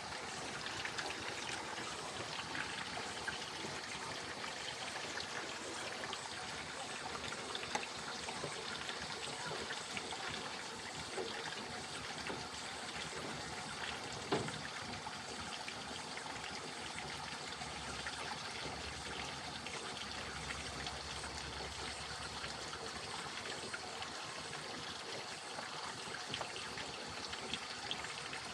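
Water running and trickling steadily, with one short knock about fourteen seconds in.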